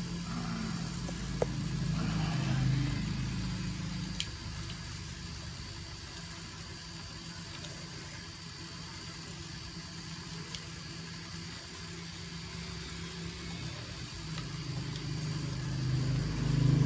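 A motor vehicle engine running at a steady idle, louder in the first few seconds and again near the end. A few faint metallic clicks come from pliers working on an airgun's sling swivel.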